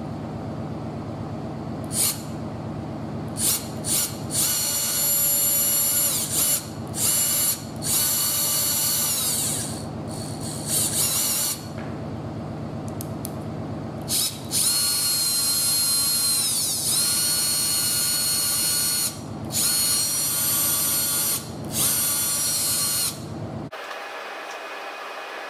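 Bosch GDR18V-LI cordless impact driver running: a steady low hum throughout, with the trigger pulled again and again so the motor rises into a high whine in bursts. The bursts are short at first and then longer, with one brief dip in pitch, and the tool stops shortly before the end.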